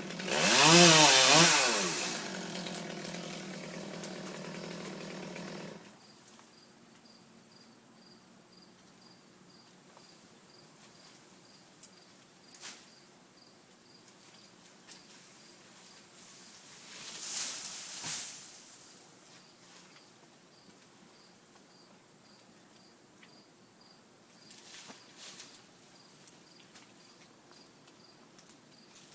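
Chainsaw revving up and down hard for about two seconds, then running steadily at a lower level until it cuts off about six seconds in. Afterwards there is faint, regular high ticking, with a swelling rush of noise lasting about a second and a half, a little past halfway.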